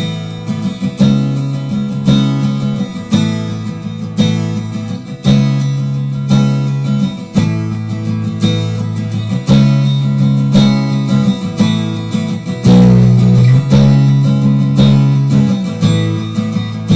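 Acoustic guitar recording playing back, chords struck about once a second over ringing low notes, processed with EQ and compression on the channel and a compressor on the group bus.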